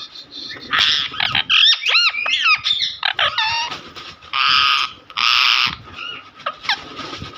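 Pet parrot calling: quick warbling and whistled calls that rise and fall, then two harsh squawks of about half a second each a little past the middle.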